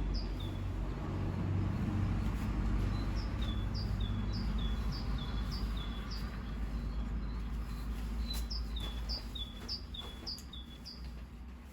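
A small bird calling over and over, a short two-note chirp about twice a second, over a low steady hum that thins out about four seconds in.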